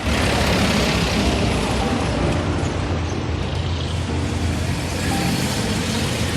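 Road traffic: motor vehicle engines running with a steady low rumble and hiss, starting abruptly.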